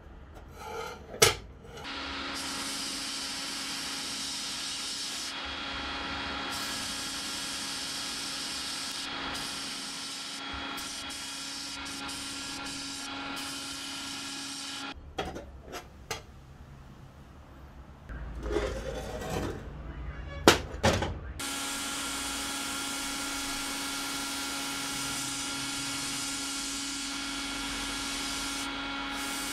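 Abrasive blasting cabinet in use: a steady hiss from the blast gun over a steady hum. Midway it stops for several seconds, broken by knocks and clanks of parts being handled, then starts again. A single sharp knock comes about a second in.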